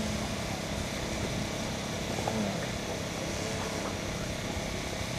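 Distant drone of an electric 3D aerobatic RC aeroplane's motor and propeller in flight, faint beneath a steady outdoor hiss, dipping in pitch about two seconds in.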